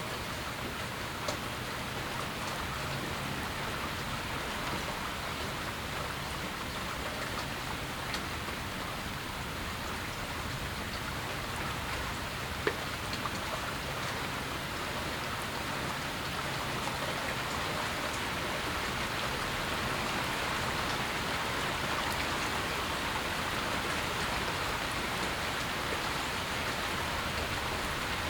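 Steady moderate rain falling and pattering on surfaces during a thunderstorm, with a few sharp drip ticks. It grows slightly louder in the second half.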